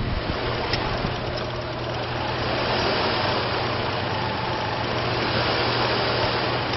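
2005 GMC Envoy's 4.2-litre inline-six engine idling steadily.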